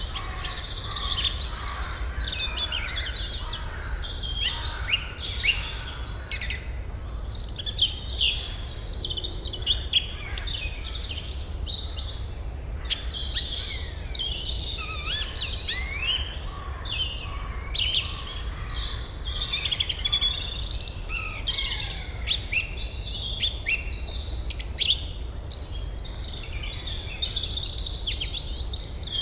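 Many birds chirping and singing at once in a dense, continuous chorus of quick overlapping calls and trills, over a low steady rumble.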